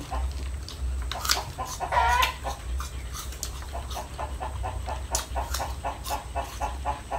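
Chickens clucking in a run of short, repeated notes, with one longer wavering call about two seconds in.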